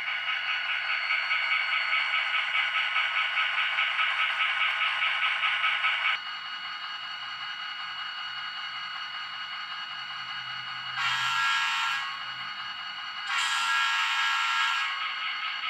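HO-scale GP40-2 model locomotive's sound decoder. A bell rings rapidly for about six seconds over a low diesel engine sound. Then come two horn blasts, the second one longer.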